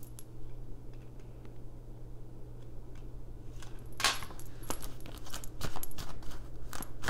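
Light clicks and clinks of small hard objects being handled, a few at first and coming thick and fast from about four seconds in, over a steady low hum.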